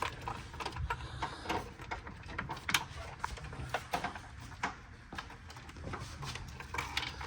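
Irregular light clicks and knocks of hand tools and engine parts being handled during work on an LS engine's intake, a few strikes a second.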